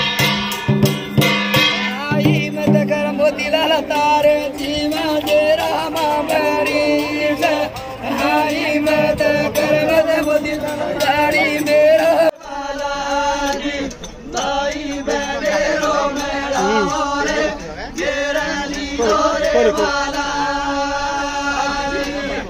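Folk-style devotional song with singing over instruments. It breaks off abruptly about halfway through and carries on as a different passage.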